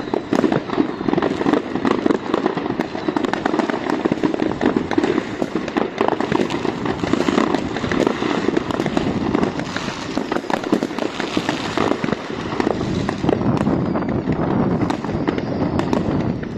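Dense barrage of fireworks and firecrackers: many overlapping bangs and crackles without a pause, with aerial shells bursting overhead.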